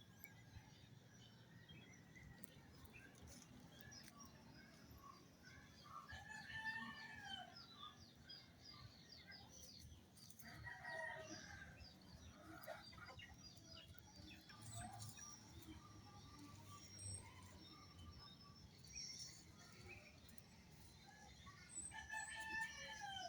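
Faint roosters crowing several times, with small birds chirping.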